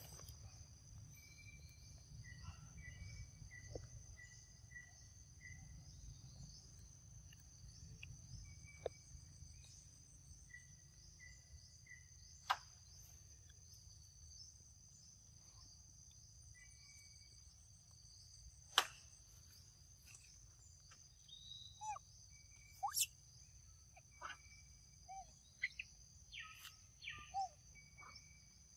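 Insects droning steadily at a high pitch, with short repeated chirps over them in the first half. A few sharp clicks stand out around the middle, and a run of brief gliding calls comes in over the last several seconds.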